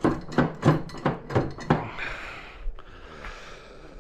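A quick run of sharp knocks and clanks, about eight in the first two seconds, from the metal gearbox housing of a rotary tiller being worked by hand as it refuses to come off. Then a softer rustle.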